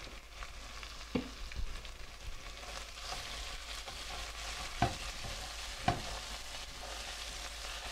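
Garlic and chopped parsley and basil frying in hot olive oil in an enameled pot: a steady sizzle, with a silicone spatula stirring and knocking against the pot three times.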